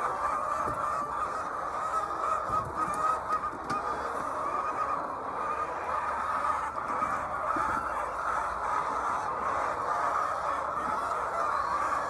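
A large flock of white laying hens, many calling at once in a steady, continuous chorus.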